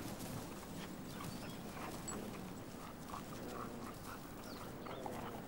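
A dog making short whines and growls in a play tug-of-war over a toy held by a person.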